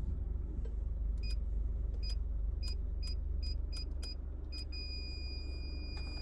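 Gate-entry keypad beeping as its code keys are pressed: eight short beeps at an uneven pace, then one long steady beep near the end. Underneath is the low hum of the Honda CR-V's engine idling.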